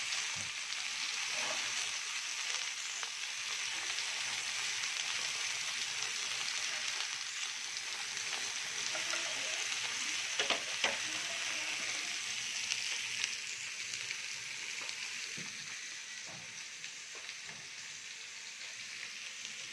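Bacon-wrapped beef tenderloin medallions sizzling steadily as they sear in a hot pan, with a few sharp clicks about halfway through. The sizzle eases off toward the end.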